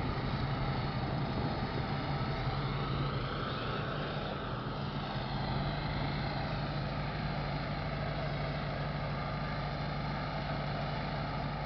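Four-cylinder engines of a Volvo 122S and an Opel GT idling steadily, with an even, unchanging hum.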